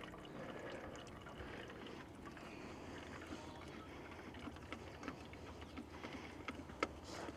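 Faint dribble of engine oil from a backhoe's oil filter housing into a drain pan, with scattered small clicks and one sharper click near the end.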